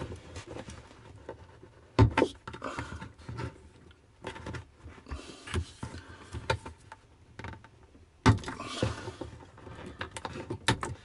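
Irregular knocks, clicks and rustling: handling noise of hands working at a plastic water-pipe connector in a cramped space under a cabinet. Two sharp, loud knocks stand out, about two seconds in and about eight seconds in.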